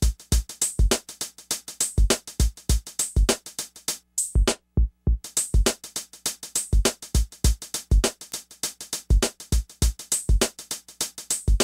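Background music: an electronic beat of kick drum and hi-hat in a steady rhythm, dropping out briefly about four seconds in before picking up again.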